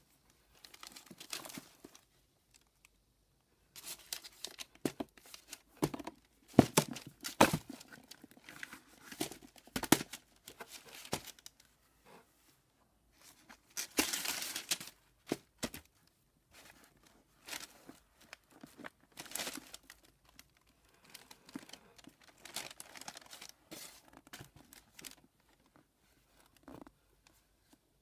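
Tissue paper rustling and crinkling, with a few sharp knocks, as sneakers are handled and turned in a shoebox. The handling noise comes in irregular bursts with short pauses between them, and the loudest rustle falls about halfway through.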